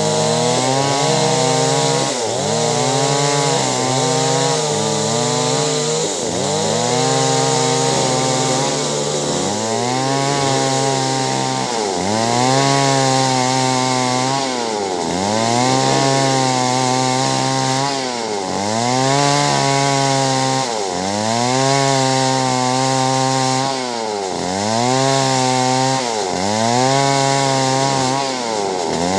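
Two-stroke chainsaw cutting clove-tree wood. The engine note sags and climbs back over and over, about once every two seconds, as the chain bites into the wood and eases off.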